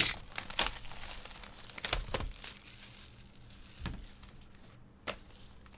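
Trading card box packaging crinkling and tearing as it is opened and handled, with a handful of sharp clicks and taps scattered through.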